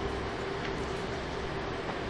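CNC machine tool running with a steady mechanical hum and a constant droning tone, with a couple of faint ticks.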